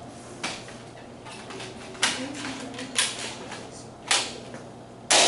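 Nerf Rival foam-ball blaster being worked and fired: a handful of sharp plastic clacks about a second apart, the last, near the end, the loudest.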